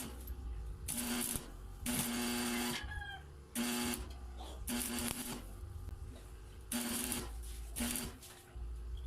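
Small high-speed electric motor switched on in short bursts of about half a second to a second, six or seven times, each burst a steady hum with a hiss over it.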